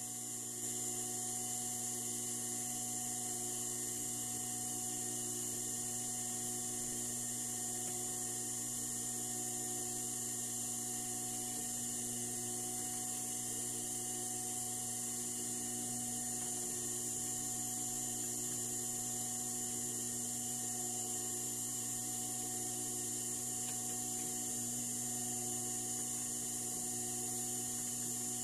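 A steady low electrical hum with a faint high hiss, unchanging throughout.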